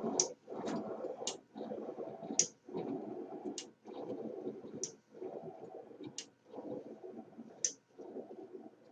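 Low-friction cart rolling along a track with a steady rumble, bouncing off the spring bumpers at each end with a sharp click about eight times. The clicks come further apart as the cart slows.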